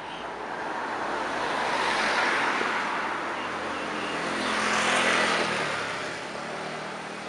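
Road vehicles passing by: a rush of traffic noise swells and fades twice, peaking about two and five seconds in, the second pass carrying an engine note that falls in pitch as it goes by.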